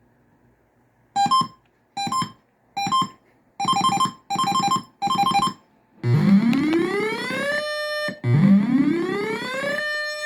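RadioShack PRO-136 weather radio's alert through an external speaker with heavy bass. First a series of short electronic beeps: three single, then three quick triples. Then the siren starts about six seconds in, a wail that sweeps up and holds, repeating about every two seconds.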